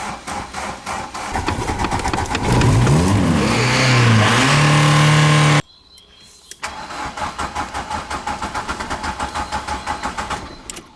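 VW Golf Mk2 engine cranking hard on the starter, then catching and revving up and down for about three seconds before cutting off suddenly. After a short pause the starter cranks the engine again, in rapid even pulses, without it firing. It is an old car with serious starting problems.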